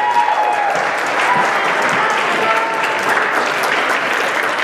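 Audience applauding, a steady clatter of many hands clapping, with a few voices in it.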